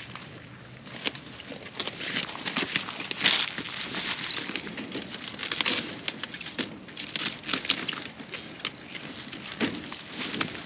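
Crisp rustling and crunching of cauliflower plants being handled and cut: many irregular short crackles as the stiff leaves are pushed aside and snapped.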